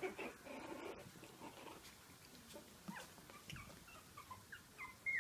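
Small puppies playing, with a rough, scuffling stretch in the first second, then a run of short, high puppy squeaks that drop in pitch, the loudest one near the end.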